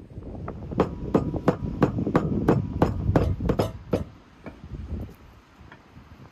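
Meat cleaver chopping raw beef into mince on a wooden log block, about three strokes a second, stopping about four seconds in.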